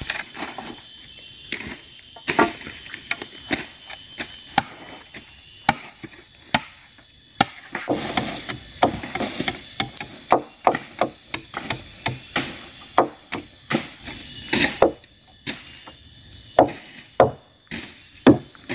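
Repeated chopping strokes with a blade into wood and brush, irregular at about two blows a second with short pauses, over a steady high drone of forest insects.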